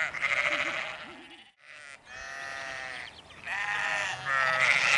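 Sheep bleating, several quavering calls one after another, with a brief break about a second and a half in.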